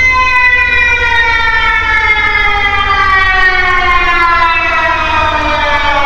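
A loud warning siren sliding slowly and steadily down in pitch, its tone rich in overtones.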